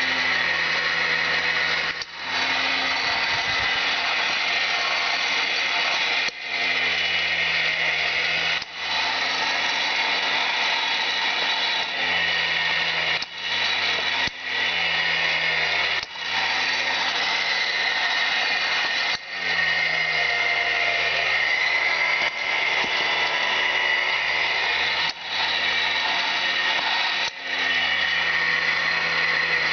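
An electric power tool's motor running steadily, broken by short gaps every second or few.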